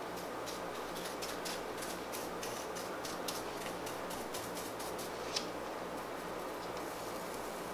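Sheet of gold leaf foil crinkling under fingertips as it is pressed and smoothed flat: a run of small, sharp crackles in the first half and a single louder crackle about five seconds in, over a steady hiss and low hum.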